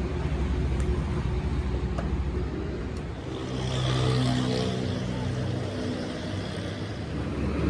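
Heavy diesel truck engine running with a steady low rumble, rising in pitch and level for a couple of seconds in the middle, with a few light clicks.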